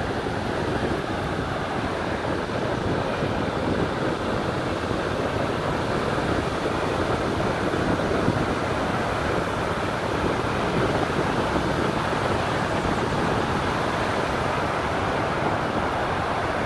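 Steady rushing noise while cycling beside a river: wind on the phone's microphone from the ride, mixed with the rush of water going over the falls.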